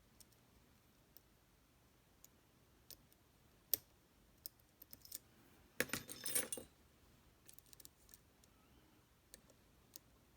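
Small scattered metal clicks from working a Tesa TK100 lock cylinder with picking tools, with a brief cluster of clicks and rattling about six seconds in.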